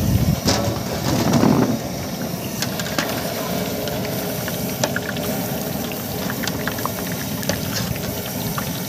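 Bread cubes deep-frying in a large pot of hot oil: a steady sizzle and bubbling with scattered sharp pops and clicks as a slotted metal spoon lifts and turns the pieces. It is louder for about the first two seconds.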